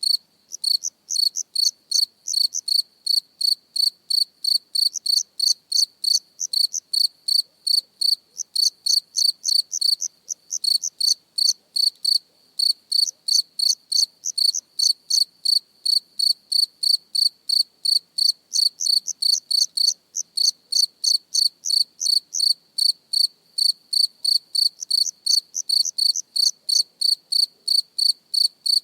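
A single cricket chirping close to the microphone: a steady run of short, high-pitched chirps, a few a second, with a couple of brief pauses.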